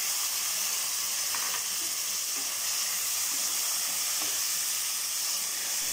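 Chopped tomatoes, small onions and green chillies sizzling steadily in hot oil in a kadai, with a spatula stirring and scraping through them.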